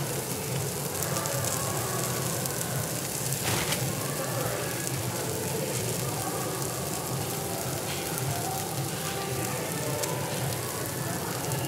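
Meat sizzling steadily on a tabletop Korean barbecue grill, with a low hum underneath.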